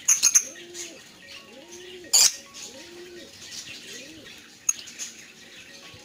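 Lovebirds in an aviary giving sharp, shrill chirps, a quick cluster just after the start and one loud call about two seconds in. Under them runs a low call that rises and falls, repeated about once a second.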